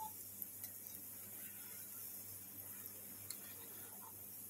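Gulab jamun dough balls deep-frying in hot oil: a faint steady sizzle, with a few light ticks as they are stirred with a metal spoon.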